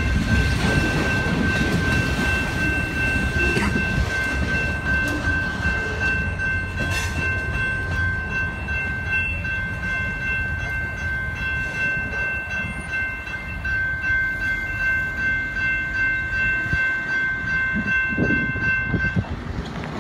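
The freight train's last cars roll past with a low rumble that fades over the first several seconds, while the crossing's General Signals Type 2 electronic bells ring steadily. The bells cut off about a second before the end as the gates come up.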